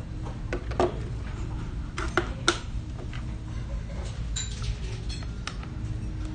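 Cutlery and dishes clinking and knocking now and then over a steady low restaurant hum, with one brief high ringing clink a little past the middle.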